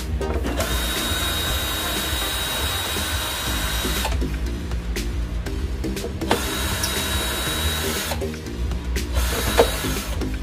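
Cordless electric screwdriver running in three spells of a few seconds each, backing out the casing screws, with a steady high motor whine.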